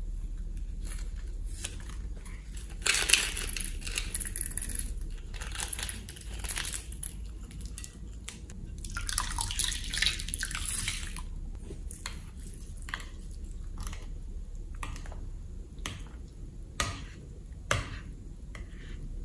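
Slime being worked by hand in a glass bowl: wet, hissing pours and squishes in several stretches, then a metal spoon stirring the slime, with sharp clicks against the glass bowl toward the end.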